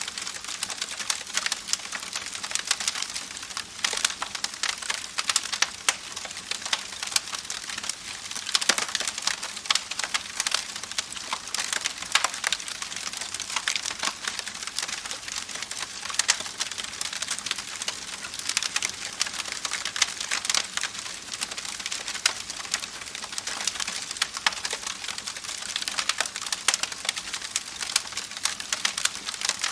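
Campfire crackling: burning wood giving off dense, irregular pops and snaps over a soft steady hiss.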